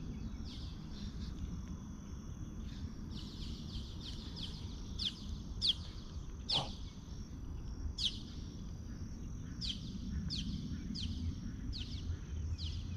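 Birds calling over and over in short, high, falling chirps, one or two a second, against a faint steady high tone and low wind rumble on the microphone.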